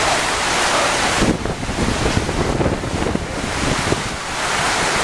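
Hurricane-force storm wind buffeting the microphone. A dense, steady hiss thins out about a second in, leaving uneven low rumbling buffets, then fills back in near the end.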